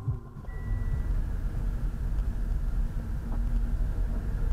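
A car driving, with a steady low engine and road rumble and one short high beep about half a second in.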